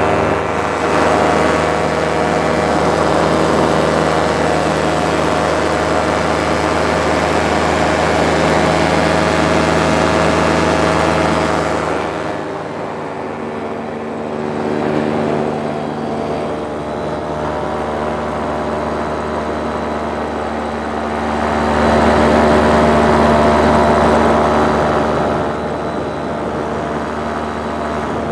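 Paramotor engine and propeller running steadily in flight. It is throttled back about twelve seconds in, opened up again a little after twenty seconds, and eased off once more a few seconds later.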